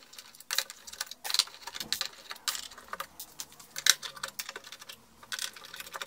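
Irregular small clicks and taps of a Torx T10 screwdriver backing screws out of a printer's plastic top cover.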